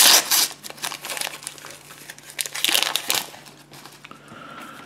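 Plastic wrapper of a collector-sticker packet being torn open and crinkled by hand, loudest right at the start and again in a burst about two and a half seconds in.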